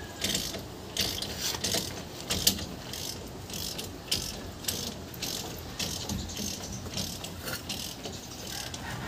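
Socket ratchet wrench clicking in short, uneven runs as bolts on a rear wheel hub are turned.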